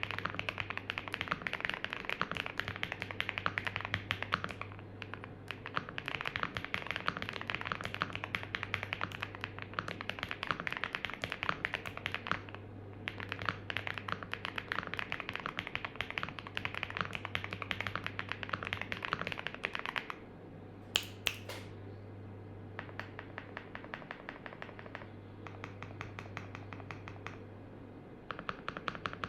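Fast typing on a Vortex NS75 mechanical keyboard with factory-lubed MKID Merpati linear switches, a tape mod and ABS double-shot keycaps, picked up by a laptop microphone. Rapid key clicks come in runs broken by short pauses, with lighter typing near the end, over a steady low hum.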